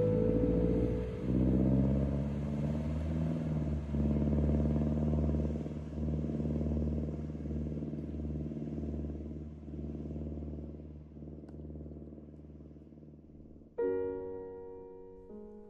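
A steady low drone that slowly fades away, followed near the end by soft piano music starting up.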